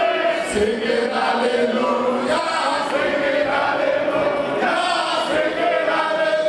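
A crowd of men singing or chanting together in unison, in long held notes that change pitch every second or so, with the echo of a large hall.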